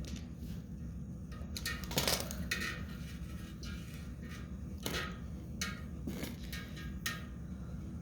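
A few scattered light clicks and clinks from hands and tools working at a generator's fuel line and filter, over a steady low hum.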